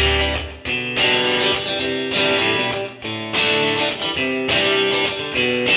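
Background music: guitar-led instrumental with plucked and strummed chords.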